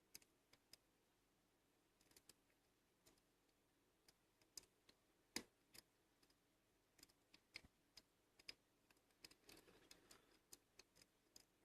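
Faint, irregular small clicks of a lock pick working inside a Bi-Lock rim cylinder, a few seconds apart, the loudest about five seconds in, with a soft rustle near the end.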